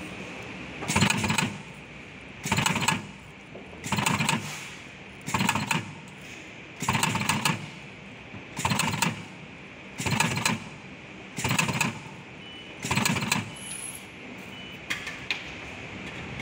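Automatic battery spot welder's twin-electrode head welding a metal strip onto cylindrical cells: nine short bursts of welding, about one every one and a half seconds, over a steady high machine whine. A few smaller clicks follow near the end.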